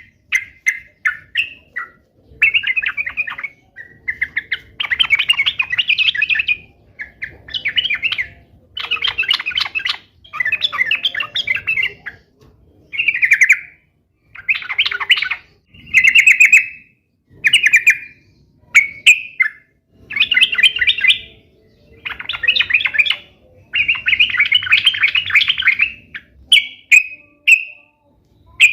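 Yellow-vented bulbul (trucukan) singing in a lively run of short, bubbly chattering phrases, each half a second to two seconds long, with brief pauses between them.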